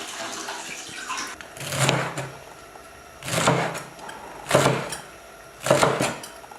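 A cleaver chopping the washed leaves on a cutting board: four heavy strokes spread over a few seconds, the last two sharp.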